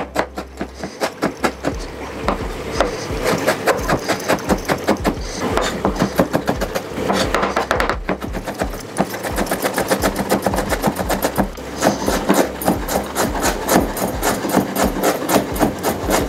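Large kitchen knife chopping ginger finely on a bamboo cutting board: rapid, even strokes, several a second, growing more forceful after the first second or so.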